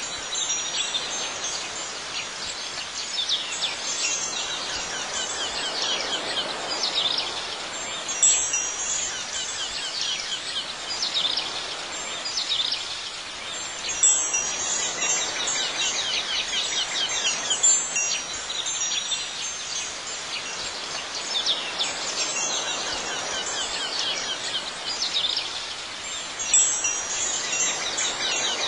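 Chimes tinkling continuously, many quick high notes over a soft hiss, with brighter flurries of strikes every few seconds.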